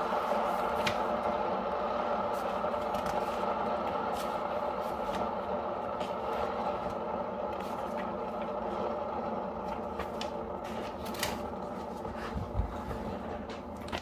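Single-serve pod coffee maker humming steadily while it preheats its water, before any coffee is dispensed, with a few faint ticks.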